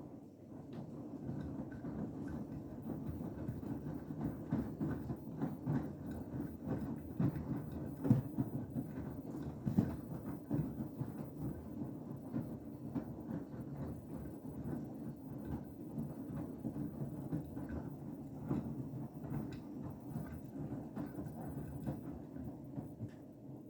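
Beko WTK104121W washing machine drum turning in a Cottons 60 main wash: wet laundry tumbling and sloshing with a steady rumble, a scatter of knocks and two louder thuds midway. The sound builds up in the first second and dies away near the end as the drum stops its turn.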